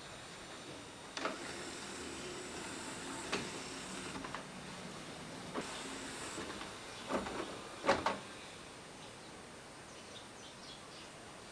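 Mechanism of an Aiwa NSX-S52 mini hi-fi working: sharp mechanical clicks with short stretches of motor whirring between them, the loudest clicks near the end, over a faint steady hiss.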